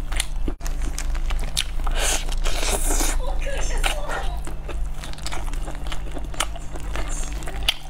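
Close-miked eating sounds: the crisp skin and meat of a roast poultry leg crackling and tearing as plastic-gloved hands pull it apart, with biting and chewing in between.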